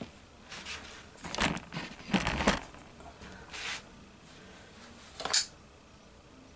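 Cotton cargo pants rustling and a Kershaw CQC-7 folding knife's pocket clip scraping as the knife is pushed into the pocket, loudest about two seconds in. A little over five seconds in comes one quick, sharp scrape as the knife is drawn out and its blade swings open.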